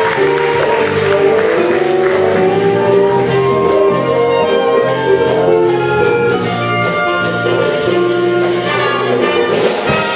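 A wind band of saxophones, flute and brass playing a piece together, with sustained chords under a moving melody.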